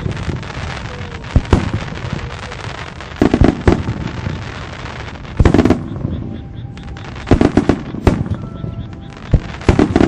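Fireworks display: aerial shells bursting, a run of sharp bangs with loud clusters about three and a half, five and a half and seven and a half seconds in, and many smaller pops between them.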